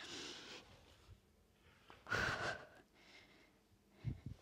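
A woman breathing audibly through a Pilates rolling exercise, a drawn-out breath at the start and a stronger, sharper breath about two seconds in, paced with rocking back and up. A few soft low knocks come near the end.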